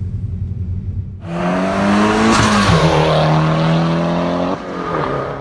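Car engine accelerating hard: a low rumble, then a loud rise in pitch about a second in, a sudden drop in pitch like a gear change, and a steady pull before it eases off and cuts off abruptly.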